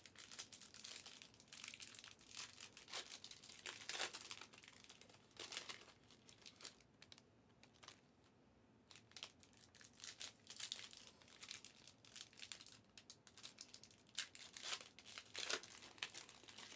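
Plastic wrappers of trading card packs crinkling and rustling as they are handled and stacked, in irregular scattered bursts with a quieter stretch in the middle.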